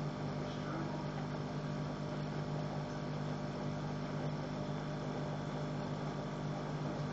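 Steady low electrical hum with a hiss behind it, unchanging throughout.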